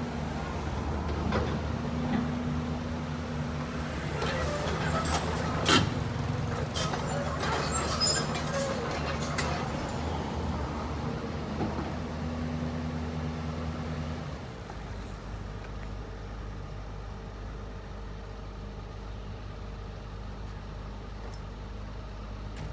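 Heavy machine engine running steadily, with scattered sharp knocks and clanks, the loudest about six seconds in. About fourteen seconds in, the engine note drops to a lower, quieter steady hum.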